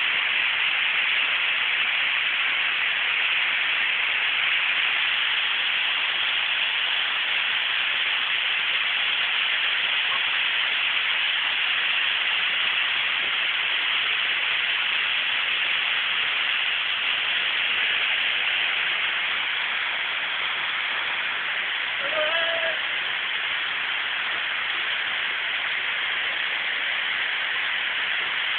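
Waterfall pouring, a steady rushing of water with no break. A short voice sounds briefly about twenty-two seconds in.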